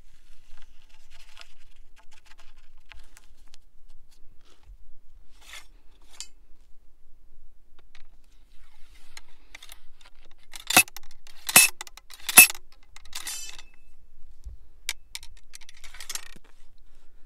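Heavy steel ramrod of a Danish Model 1848 tige rifle slammed down the barrel three times, each blow a sharp metallic clank with a ring, smashing the bullet onto the steel pillar in the breech so that it expands into the rifling. A lighter ringing clink follows, then faint clicks and a scrape of the rod in the bore.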